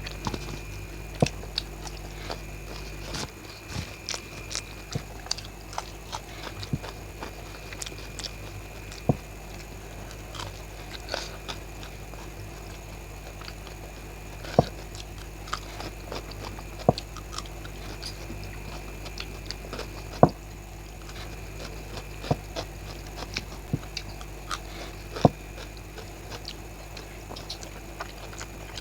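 A person chewing and biting food close to the microphone while eating raw green chillies and boiled eggs, with irregular sharp crunches and mouth smacks over a steady background hum.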